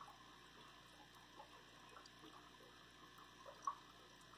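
Near silence: the faint trickle and light bubbling of an aquarium's air-driven sponge filter, with one short louder click about three and a half seconds in.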